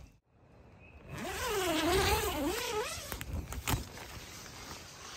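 A flying insect buzzing close by, its pitch wavering up and down as it moves about, for about two seconds. A single sharp knock follows.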